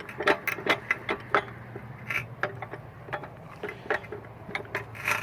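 Irregular metal clicks and clanks of a bench vise being worked to clamp a piece of rebar, several a second, over a faint low hum.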